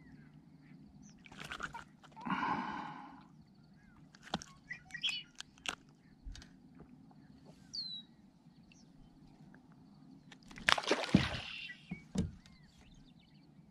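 Scattered knocks, clicks and rustles of fishing gear being handled in a kayak, with a brief bird chirp and a louder rush of noise about eleven seconds in.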